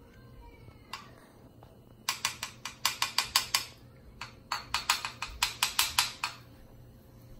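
Two quick runs of sharp tapping, about eight taps a second, each lasting a second or two.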